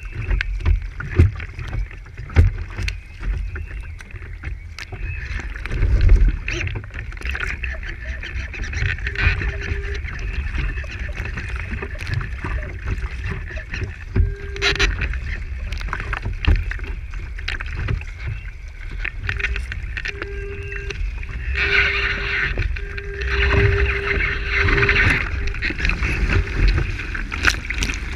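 Water rushing and splashing along the hull of an IOM radio-controlled sailing yacht under way, with spray spattering and wind buffeting the stern-mounted camera. A faint whine comes and goes now and then in the second half.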